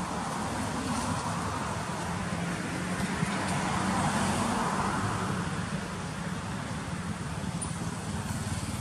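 Outdoor road traffic noise, a continuous rumble and hiss that swells to a peak about four seconds in and then eases.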